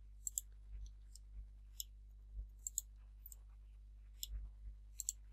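Computer mouse clicks, a dozen or so, several coming in quick pairs, with faint soft low thumps between them, as edges are picked one after another in a 3D modelling program.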